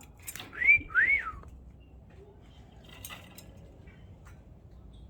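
Two short whistled notes about a second in, each rising and then falling in pitch, followed by a few faint clicks.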